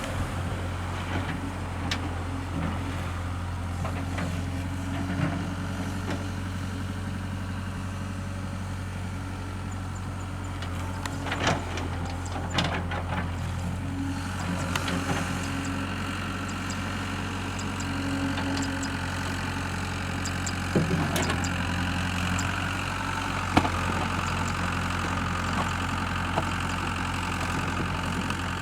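Hitachi hydraulic excavator's diesel engine running steadily, with a few sharp knocks scattered through.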